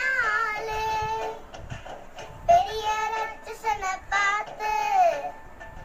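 A young girl singing a song, holding long notes that glide up and down, in phrases with short breaths between them.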